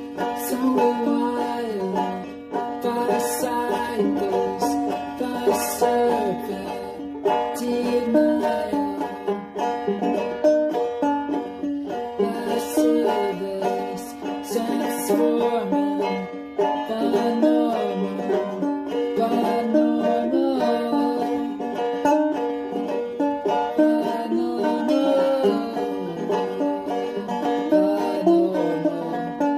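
Banjo being played, a continuous run of plucked notes.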